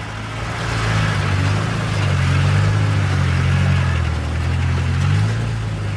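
Land Rover Defender pickup's engine running under load as it crawls over rocks, its note rising a little in the middle and easing back down near the end.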